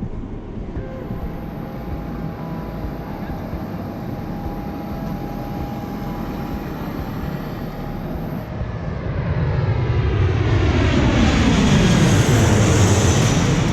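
Airplane flying low overhead: a steady engine rumble that grows much louder about two-thirds of the way in, with a sweeping, shifting pitch as it passes close by.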